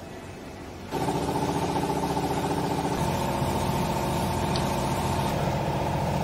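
A motor-driven machine starts abruptly about a second in and runs with a steady, loud mechanical hum.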